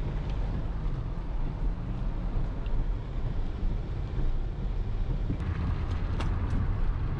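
Car driving, heard from inside the cabin: a steady low road and engine rumble with a light hiss, and a few sharp ticks near the end.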